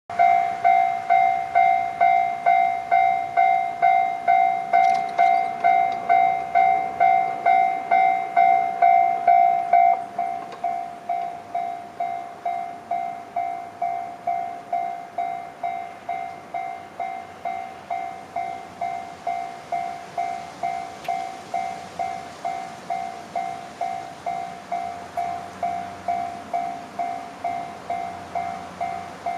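Japanese level-crossing warning bell ringing in a steady, even rhythm of about two strikes a second. It gets noticeably quieter about ten seconds in and keeps ringing.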